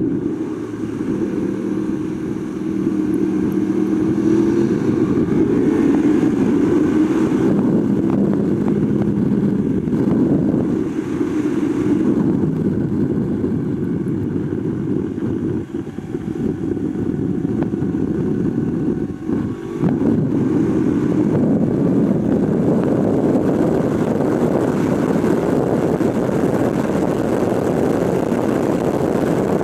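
2021 Yamaha YZF-R1's crossplane inline-four engine running hard under a noisy rush of wind on the bike-mounted microphone, its pitch rising and falling with the throttle through the corners. The sound dips briefly twice a little past the middle.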